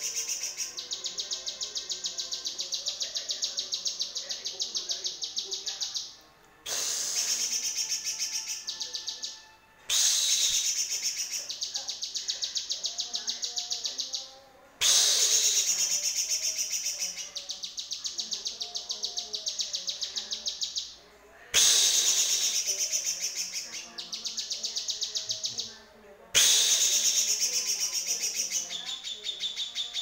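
Caged cucak kinoy singing its harsh song: very rapid, high-pitched runs of repeated notes in phrases of a few seconds each. Each phrase starts loudest, and short pauses fall between them.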